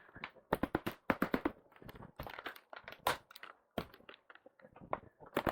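Irregular sharp clicks, taps and short rattles of metal and plastic bike parts and tools being handled.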